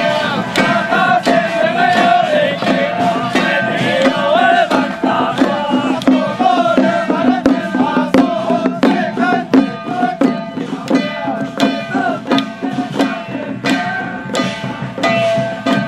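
Music with a wavering melody over drums and percussion, mixed with many sharp cracks of firecrackers going off.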